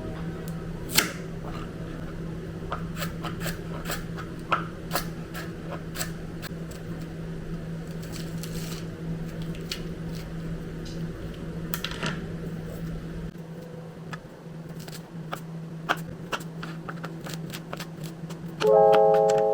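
Irregular light clicks and taps over a steady low hum, with piano music coming in near the end.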